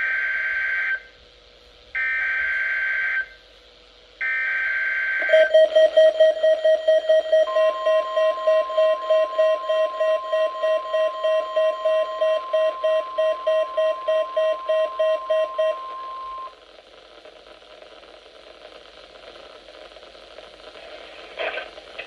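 NOAA Weather Radio Emergency Alert System activation. First come three short bursts of SAME header data, a warbling digital screech. Then the weather radio receivers beep rapidly in alert, about three beeps a second, and a couple of seconds later the steady single-pitch 1050 Hz Warning Alarm Tone sounds for about nine seconds. Beeps and tone stop, leaving faint radio static, and an announcer's voice begins near the end.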